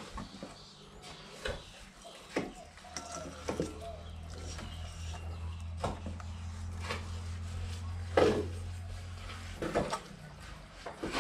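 Scattered clicks and knocks of a fish and bowls being handled during salting, over a low steady hum that starts about a second and a half in and stops shortly before the end.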